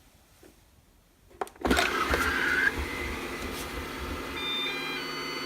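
A click, then the Ecovacs Deebot N79S robot vacuum starts up about a second and a half in: its suction motor runs steadily. A short electronic sound comes as it starts and a few beeps near the end.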